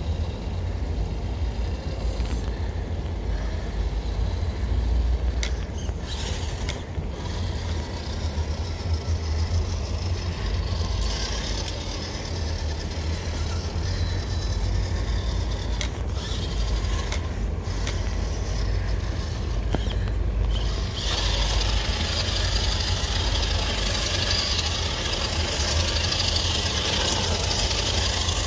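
Redcat Gen8 V2 scale RC crawler driving over thin ice and shallow water, its motor and gears whirring under a steady low wind rumble on the microphone, with a few sharp clicks. The sound grows louder and hissier for the last several seconds as it moves through the water.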